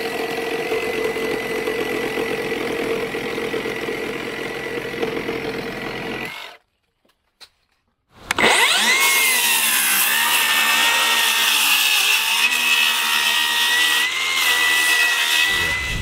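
Cordless Milwaukee Sawzall reciprocating saw with an axe blade cutting through a wooden 4x4 post, its motor running with a steady whine. It breaks off for about two seconds, then starts again with a rising whine about eight seconds in and runs steadily until shortly before the end.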